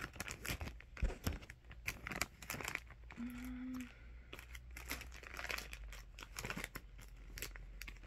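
Plastic jelly bean bag crinkling and tearing as it is handled and opened, a quick irregular run of crackles.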